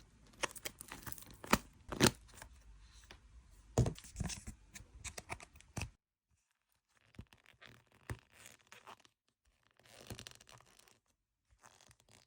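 Butter fizz slime being played with by hand, giving sharp sticky pops and crackles. They are denser in the first half and grow sparse and faint after about halfway.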